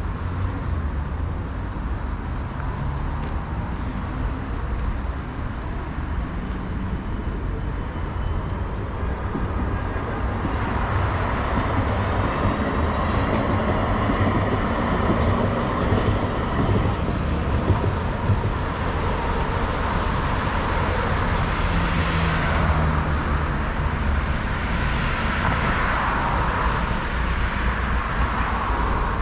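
City street traffic: a steady low rumble of vehicles, with louder passes swelling up about a third of the way in and again near the end.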